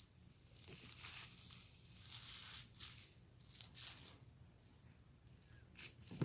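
Foam slime, glue packed with foam beads, being kneaded by hand: faint, irregular crackling and squishing as the beads pop and rub in the sticky mass.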